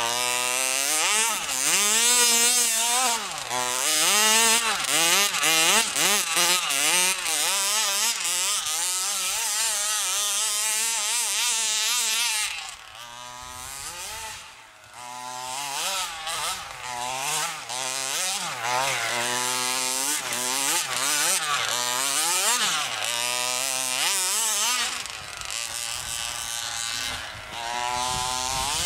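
Small 27cc two-stroke gas engine of a large-scale RC truck revving up and down over and over, with a buzzy, chainsaw-like note as the paddle tires churn through snow; it drops off and goes quieter for a couple of seconds about halfway through.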